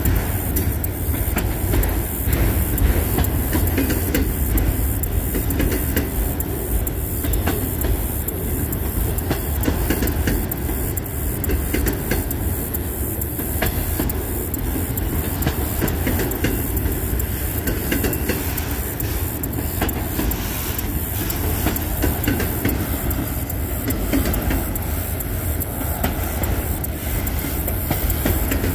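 Freight train of autorack cars rolling past at close range: a steady rumble of steel wheels on rail, broken by frequent clicks and clacks as the wheels cross the rail joints.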